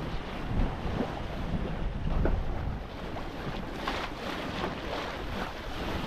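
Wind buffeting the microphone over water rushing and splashing along the hull of a sailboat under sail, with small wave splashes in the second half.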